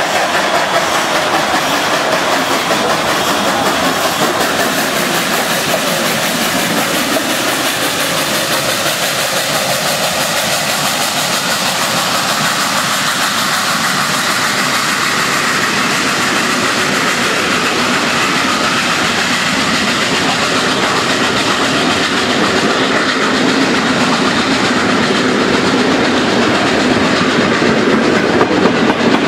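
Built-1946 ex-SNCF 141.R 2-8-2 Mikado steam locomotive passing at close range at the head of its train. Its passenger coaches then roll steadily by, wheels clattering on the rails.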